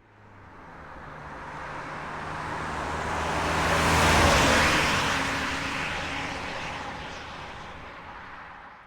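Renault Master III van with a diesel engine driving past: it builds steadily, is loudest a little under halfway through, then fades away until it cuts off near the end.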